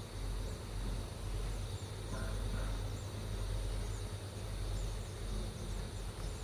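Forest ambience of insects and birds: a steady high insect drone with short high chirps repeating throughout, over a low steady rumble.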